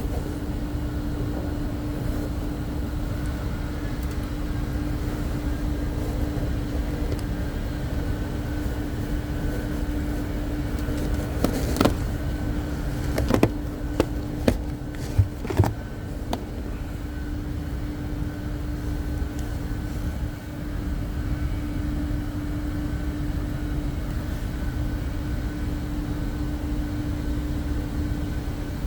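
Range Rover engine running steadily with the A/C compressor on: an even low rumble with a constant hum. A handful of short sharp clicks come about halfway through.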